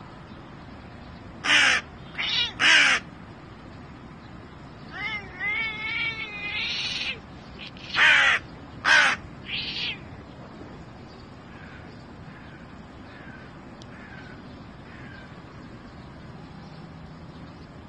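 Hooded crow cawing: three loud harsh caws, a wavering gurgling call, then three more loud caws, followed by a few faint short calls near the end.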